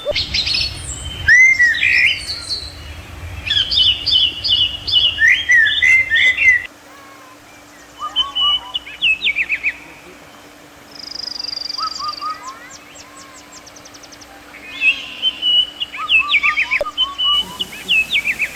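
Aviary birds chirping and calling, many short high notes and quick repeated call series in bursts with brief lulls between them.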